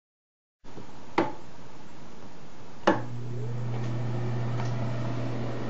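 A switch clicks twice, and with the second click a bathroom exhaust fan starts up and runs with a steady low hum.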